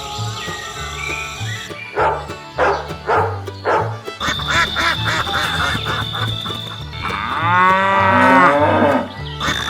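Background music with a steady beat, and about three-quarters of the way in a cow mooing once, long and loud.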